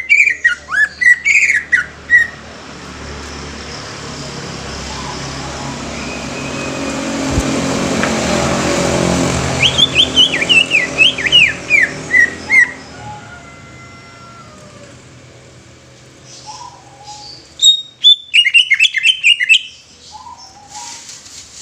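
Green leafbird (cucak ijo) singing in three bursts of quick, sharp, down-sweeping whistled notes: at the start, about ten seconds in, and about eighteen seconds in. Between the first two bursts a broad rushing noise swells and then fades.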